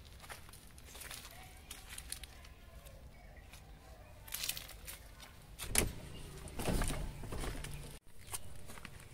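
Car front door being opened by hand: a sharp click from the handle and latch a little past halfway, then about a second of low noise as the door swings open, with light handling clicks around it.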